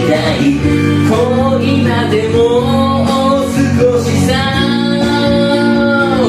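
A singer sings a J-pop rock ballad in a high register over a band backing with guitar, closing on a long held note.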